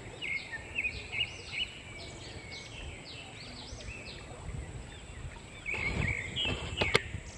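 Birds chirping: a quick run of short whistled notes that rise and fall, over the low steady rush of a shallow, fast stream. A single sharp click near the end.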